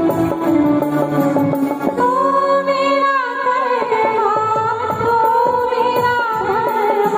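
Choir singing a song to harmonium accompaniment, amplified through microphones. Sustained harmonium chords over steady percussion strikes open, and the sung melody comes in about two seconds in, with a wavering, held pitch.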